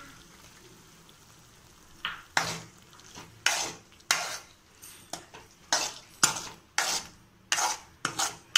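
A metal spoon stirring a watery green chicken curry in a nonstick pan, scraping against the pan in short, quick strokes about two a second. The strokes begin about two seconds in, as freshly added water is mixed into the masala.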